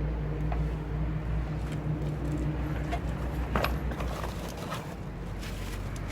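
SsangYong Korando Sports pickup idling, with a few sharp knocks, the loudest a little past halfway. The engine note changes near the end.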